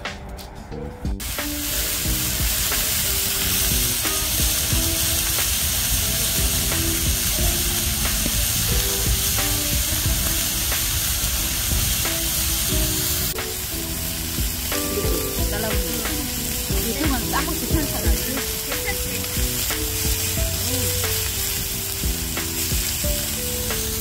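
Slices of beef frying on a hot griddle plate, a loud steady sizzle that starts about a second in, with background music underneath.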